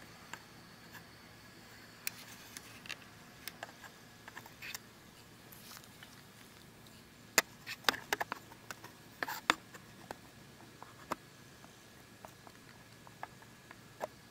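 Irregular light clicks and taps of hands handling the camera, bunched together about halfway through, over a faint steady hiss.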